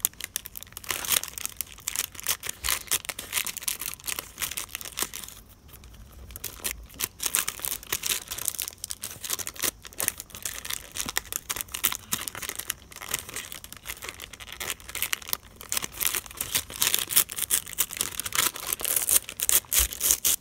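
Tissue paper stiffened with dried starch glue being peeled off a clear plastic sheet, crackling and crinkling as it comes away, with a short lull about six seconds in.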